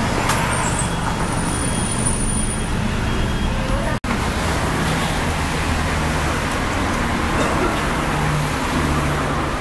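Steady road traffic noise with a low engine hum, briefly cut off about four seconds in.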